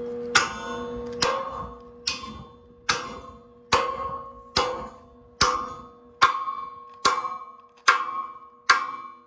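A big hammer striking the steel of an excavator root rake, eleven hard blows a little under a second apart, each one ringing. The steel is being beaten back flat so it can be welded. A steady hum runs underneath.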